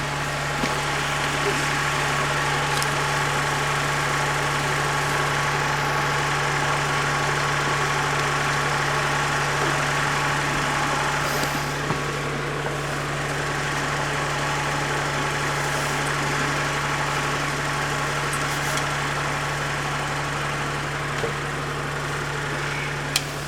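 An engine running steadily at idle, an even hum that does not change, with a few faint knocks over it.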